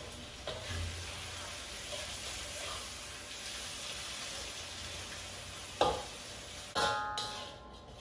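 Soy-sauce gravy with fried eggs and potatoes sizzling in a wok as a spatula stirs it, with light knocks of the spatula on the pan. Near the end come two sharp metal clanks, the second ringing, and then the sizzle drops lower.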